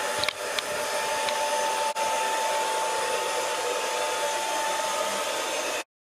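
Handheld hair dryer running steadily on heat, blowing air with a steady whine over it, used to shrink plastic window insulation film tight. It cuts off suddenly near the end.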